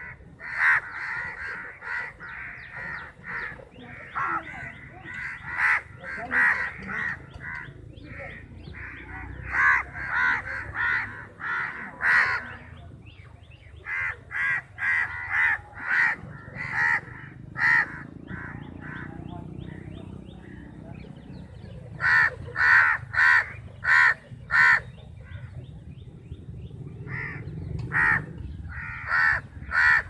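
Several crows cawing over one another, harsh calls coming in runs of several, with a lull of a few seconds past the middle before the cawing picks up again.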